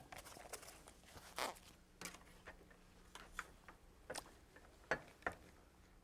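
Faint, scattered short clicks and scrapes of handling: ear-protection earmuffs being fitted on, then a circular saw being set against a wooden board.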